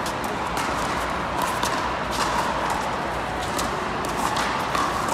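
Pickleball rally: paddles striking the plastic ball, a run of sharp pops at an irregular pace over a steady hall murmur.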